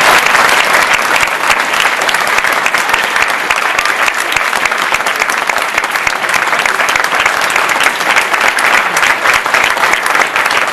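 Audience applauding: dense, continuous clapping that eases off slightly after the first second or so.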